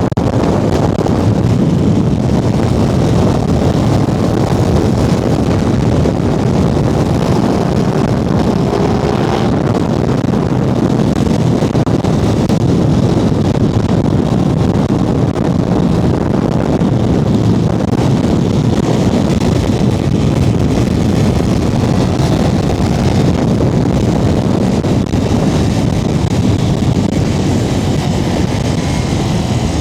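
Aprilia RS660 Extrema motorcycle's parallel-twin engine running steadily while riding, with wind rushing over the microphone.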